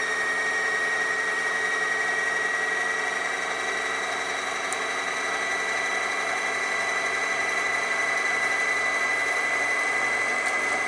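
Singer Heavy Duty sewing machine motor running flat out on the foot pedal, winding thread onto a bobbin on the top winder spindle: a steady, high-pitched whine.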